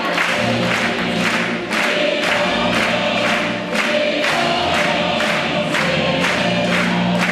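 Background music with a steady beat and singing voices.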